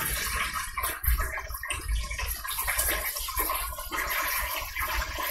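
Buttermilk-battered chicken frying in the hot oil of a countertop electric deep fryer with the lid closed: a steady sizzle with faint crackling.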